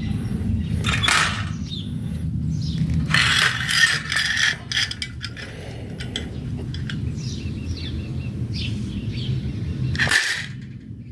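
A wire grill basket and wooden snap mousetraps being handled: scattered metallic clicks and rattles, loudest about a second in, from three to four and a half seconds in, and once more near the end, over a steady low rumble.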